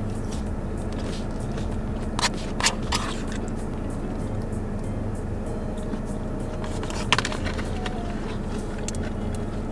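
Chewing, with a few short clicks of a plastic fork against a plastic takeout bowl, over the steady low hum of a car's cabin.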